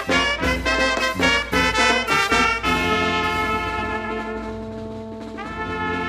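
Small brass band of tuba, euphonium, alto saxophone and trumpets playing. Short, detached chords come at about two a second, then give way about halfway through to a long held chord that slowly fades, and a new held chord enters near the end.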